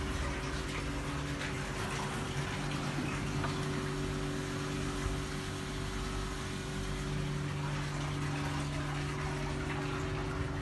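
Steady hum of running machinery: a few held tones under an even rushing hiss, with no breaks.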